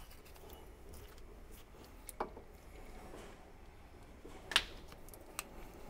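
Quiet handling of plastic and metal parts as a thermostat and its coolant hose are pulled out from under the engine, with three light clicks; the loudest comes about three-quarters of the way through.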